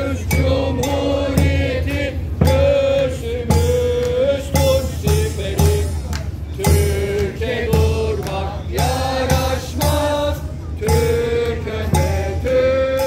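Brass street band of saxophones and trumpets with snare drum and bass drum playing a tune live, the melody moving in held notes over a steady bass drum beat.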